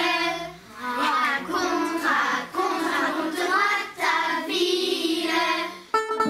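Children singing a song in short phrases, with brief breaks between them.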